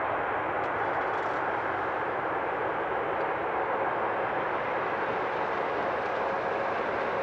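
Two Rolls-Royce Trent XWB turbofans of an Airbus A350-900 at takeoff thrust as the airliner rolls away down the runway: a steady rushing jet noise with faint whining tones.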